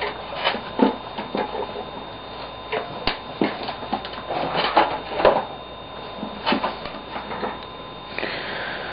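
Small plastic pieces of a taken-apart 3x3 cube clicking and clattering against each other as they are sifted through by hand, in irregular knocks. A faint steady whine runs beneath.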